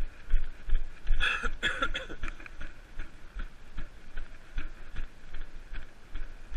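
A runner's footsteps on grass heard through a chest-worn camera: steady thuds about three a second. There is a short, louder burst of noise about a second in.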